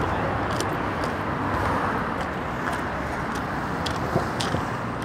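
Street traffic noise: a steady rush of cars on the road, with a few faint clicks.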